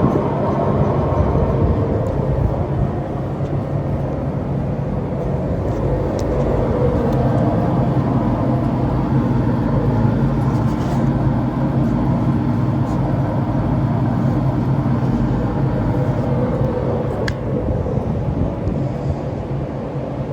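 Seydelmann MG160B industrial meat mixer-grinder running steadily, a continuous machine hum.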